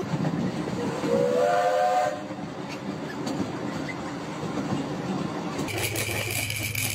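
Steady rumble and clatter of a moving train car, with a brief whistle sounding about a second in. Near the end the sound switches to a steady hum with a high tone.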